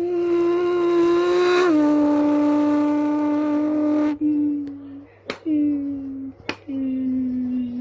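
A man imitating a V10 supercar fly-by with his voice: a loud buzzing engine note that drops in pitch about two seconds in, as if the car has passed. Two shorter, slowly falling notes follow, broken by two sharp pops.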